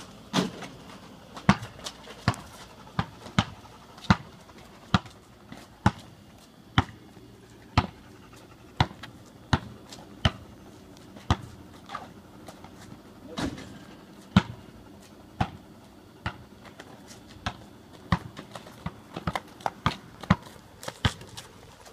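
Rubber basketball bouncing on an asphalt driveway as it is dribbled, about one sharp bounce a second, with quicker bounces near the end.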